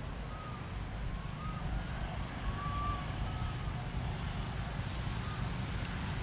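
Outdoor ambience: a steady low rumble with several short, faint, thin chirps scattered through it.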